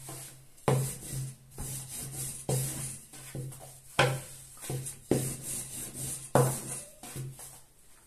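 Long thin wooden rolling pin (oklava), wrapped in a thin sheet of dough, rolled back and forth over a floured countertop to stretch the dough: rubbing and rolling with about six sharp wooden knocks against the counter.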